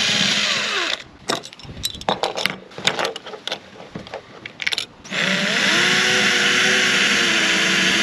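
Electric drill running: a burst that spins down about a second in, then scattered clicks and knocks, then a second burst of about three seconds that climbs quickly to a steady speed.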